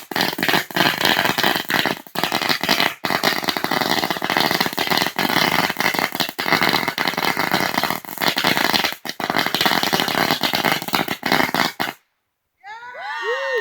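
A long string of firecrackers going off in a rapid, dense crackle of pops that stops suddenly near the end. A voice starts shouting just after it stops.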